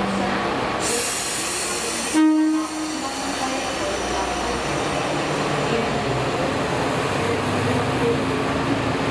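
Shimabara Railway KiHa 2500 diesel railcar moving off. A hiss lasts about a second and a half, then a short horn toot comes about two seconds in, followed by the diesel engine running as the car pulls away.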